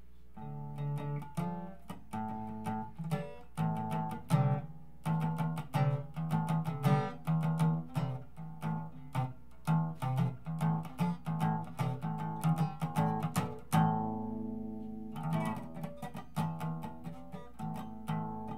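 Guitar strumming short chords in a steady rhythm, a few strokes a second, with one chord left ringing for a moment about fourteen seconds in.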